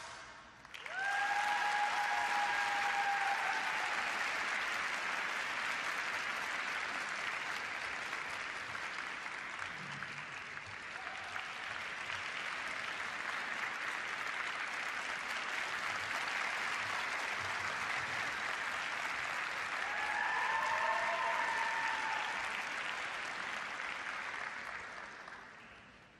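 Sparse arena crowd applauding, swelling in about a second in and fading out near the end, with a couple of short shouted cheers.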